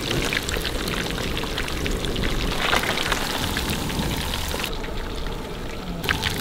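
Marinated fish pieces deep-frying in a wok of hot oil: a steady, dense sizzle and crackle of bubbling oil.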